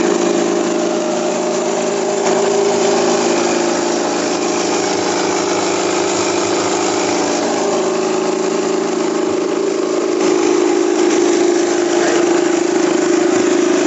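Small rice husker machine running with paddy in its hopper: a steady mechanical hum with a dense hiss over it, getting a little louder about ten seconds in.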